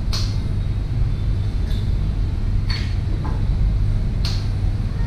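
Eggshells being struck with a kitchen knife blade to crack them open: four sharp clicks at uneven gaps of one to two seconds, over a steady low hum.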